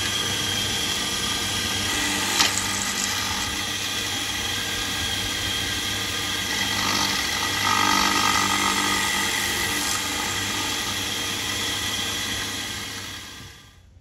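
Bench drill press running steadily, its bit boring a hole into the handle of a wooden spatula, with a sharp click a couple of seconds in and a louder stretch just past the middle. The hum dies away near the end.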